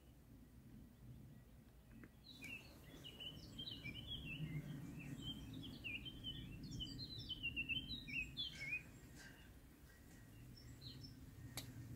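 A small songbird singing a long, rapid run of varied chirps and trills, starting about two seconds in and breaking off after six or seven seconds, with a few single chirps afterwards. A low steady outdoor rumble lies underneath.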